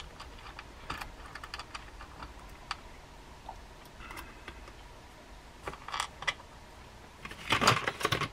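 Small metal screws and reel parts clicking as they are picked over and handled: a scatter of light clicks, with a denser, louder clatter near the end.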